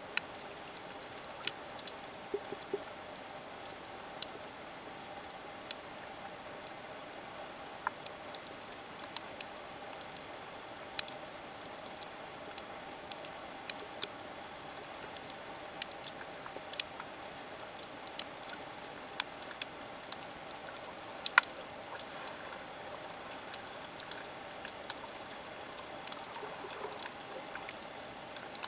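Underwater ambience picked up by a camera in its waterproof housing: a steady hiss with a faint hum, dotted with irregular sharp clicks and crackles, one louder click about two-thirds of the way through.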